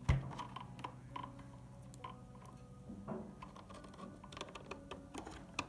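Light scattered plastic clicks and taps from hands handling a Honda Civic instrument cluster while LED bulbs are fitted, with a sharper click at the very start.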